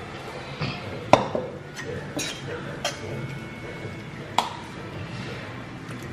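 A steel ladle knocking against a stainless steel pan while curry is scooped out: about five sharp metallic clinks spread over several seconds.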